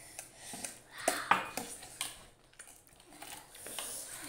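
Metal spoon clinking and scraping against a plate while noodles are scooped up and eaten: irregular light clinks, the sharpest about a second in.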